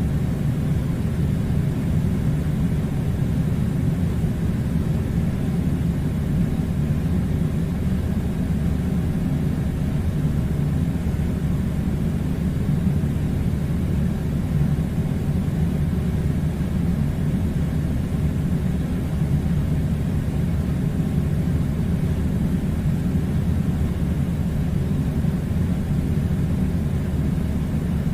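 Air conditioner running with a steady low rumble and a faint hiss, unchanging throughout.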